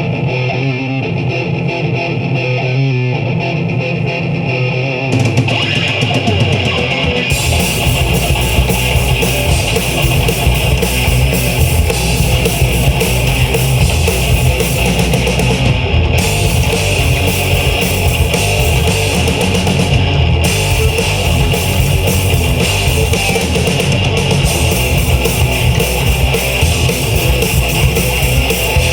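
Live heavy rock band: a distorted electric guitar riff plays alone, drums come in with cymbals about five seconds in, and the full band with kick drum and bass guitar joins at about seven seconds and plays on steadily.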